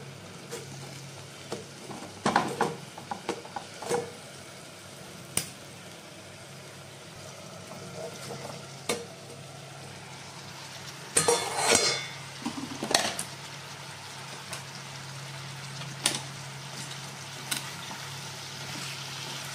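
Cucumber pieces frying quietly in a covered steel kadhai, with a steady faint sizzle. Scattered metal clinks and knocks as the steel lid is tilted and lifted, the loudest a clatter about eleven seconds in, then a spatula stirring the pieces in the pan.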